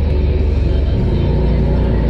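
A Polaris RZR Pro XP side-by-side's engine running steadily as it is driven off-road, with music playing over it.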